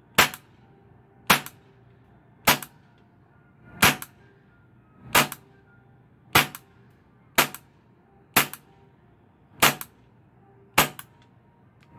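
Gas blowback airsoft pistol firing ten single shots, one a little over every second, each a sharp crack, as the last of the magazine is emptied.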